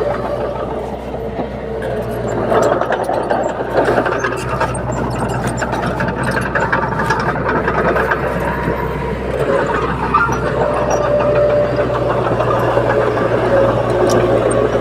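Crawler bulldozer's diesel engine running steadily under load, with the steel tracks clanking and rattling as the machine works.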